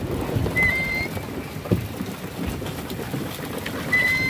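Sea water splashing and spattering against a small boat's hull as a fishing net is hauled aboard, with a few dull knocks. A short high squeak comes about half a second in and again near the end.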